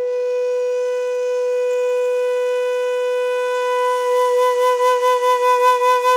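A wind instrument holds one long, steady note. About four seconds in, a wavering vibrato comes into it, about five pulses a second.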